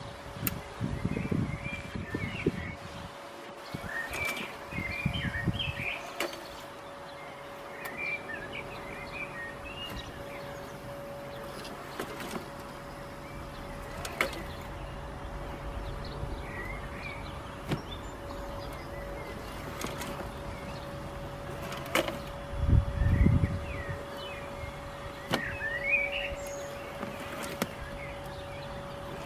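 Worx Landroid M700 robot lawn mower running while stuck, its rear drive wheels turning in soil they have dug into, one forward and one backward: a steady motor hum with a light click about every two seconds. Birds chirp over it, and there are a few low rumbles near the start and about two-thirds of the way in.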